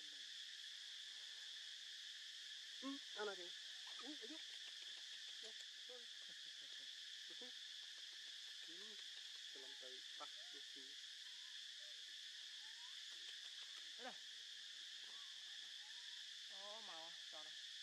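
Steady insect chorus, a high, even buzzing drone. Faint, brief pitched sounds come now and then, the loudest about three seconds in.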